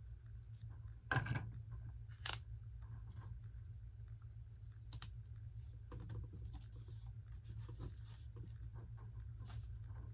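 Hands working tape and wire on a small model: a short tearing rasp about a second in, a sharp snap a second later, then scattered light clicks and rustles over a steady low hum.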